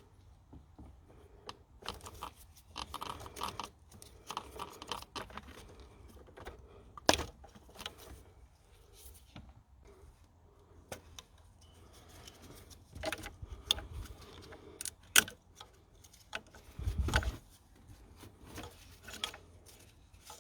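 Plastic electrical connectors on the engine wiring of a Ford Mondeo Mk4 1.8 TDCi being unclipped and the wiring loom pushed about: scattered small clicks, rattles and scrapes, with a couple of sharper clicks and a low thump near the end.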